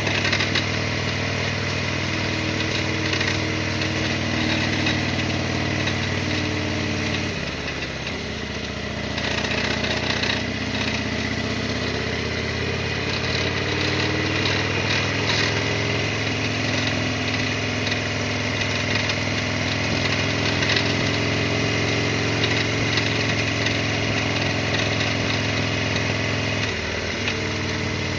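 Harley-Davidson XL1200R Sportster's air-cooled 1200 cc V-twin engine running, heard from the rider's helmet. About seven seconds in the engine eases off briefly, then its pitch rises as it pulls again, and it changes once more near the end.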